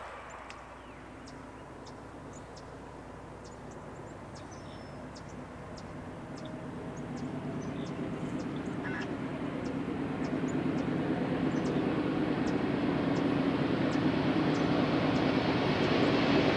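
Approaching freight diesel locomotives, their engines a low drone that grows steadily louder as the train nears.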